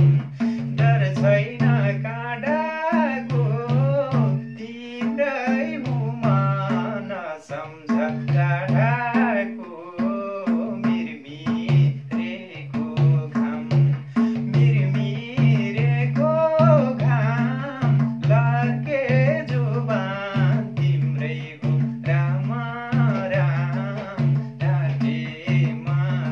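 Nepali lok dohori folk music: a hand-drum beat and a repeated low bass note pulse under a wavering melody line.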